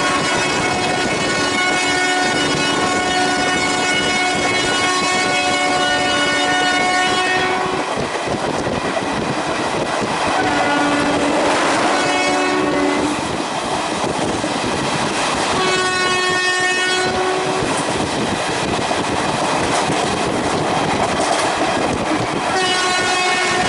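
WAP4 electric locomotive's horn sounding again and again as the express runs at speed: one long stretch of blasts, then shorter blasts about ten seconds in, about sixteen seconds in and again near the end. Underneath it all are the steady running noise and clatter of the train on the track.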